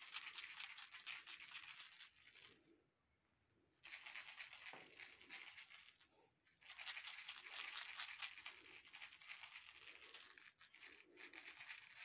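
Rapid, continuous crinkling rustle of something being shaken. It stops for about a second near three seconds in and dips briefly around six seconds.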